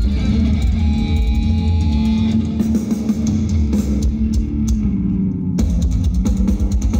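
Folk metal band playing live through a PA: electric guitars, bass and drums at full volume with held melodic notes over them. About five and a half seconds in, a rapid run of drum hits takes over.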